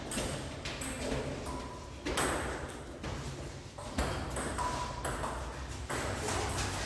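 Table tennis ball clicking off paddles and the table during a doubles rally, sharp clicks at irregular intervals.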